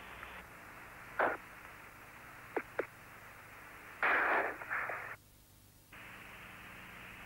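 Apollo air-to-ground radio channel hiss and static, with a few short crackles and a louder rush of noise about four seconds in. The channel then goes nearly quiet for a moment before the hiss returns.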